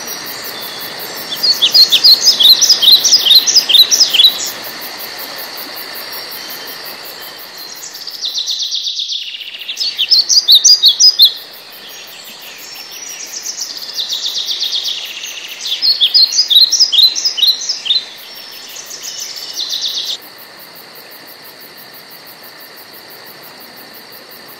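Birds singing: several bursts of rapid high chirps, each a few seconds long, over a steady high background. A steady high drone is left after the last burst.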